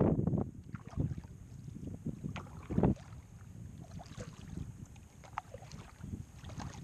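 Water lapping against a sit-on-top kayak's hull, with light wind on the microphone and a few short knocks and splashes. The loudest comes about three seconds in.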